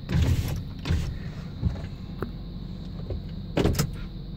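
GMC pickup engine idling quietly, heard from inside the cab as a steady low hum, with a few short knocks and rustles over it.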